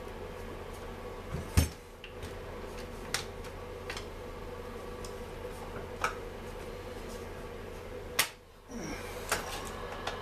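Scattered clicks and metal clanks of a Stihl MS 250 chainsaw and hand tools being handled as the saw is taken apart, with a sharp knock about a second and a half in and another about eight seconds in, over a steady hum.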